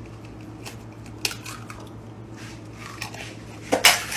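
Scattered light clicks and clatter over a steady low hum, with a louder cluster of knocks near the end.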